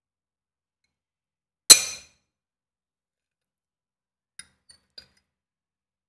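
A single sharp, loud clink of tableware, a metal fork or plate striking, ringing briefly, a little under two seconds in. About three seconds later come three faint light clicks of cutlery against the plate.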